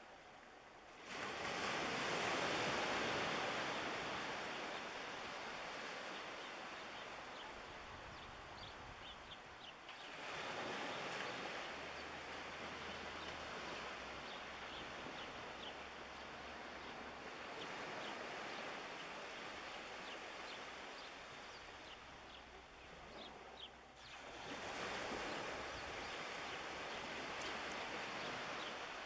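Small waves breaking on the shore and washing back, three surges that each set in suddenly and fade over several seconds.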